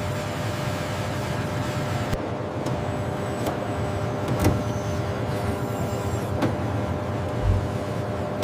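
Steady machinery hum over a wash of noise, with a few sharp clicks and knocks and one low thump near the end.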